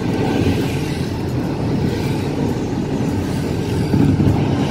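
Steady road and engine noise inside a car cruising on a highway.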